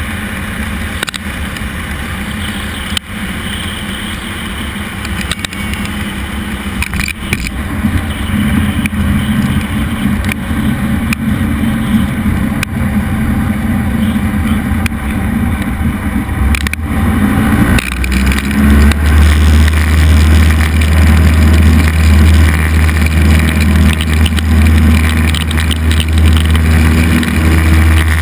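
Cessna 172 piston engine and propeller running, heard inside the cabin, growing steadily louder. A strong low drone sets in a little past halfway through.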